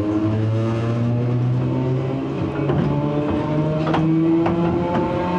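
Nose-suspended traction motors of an Enshu Railway 30-series electric train whining under power, their pitch rising slowly as the train gathers speed. Sharp knocks come through every second or so.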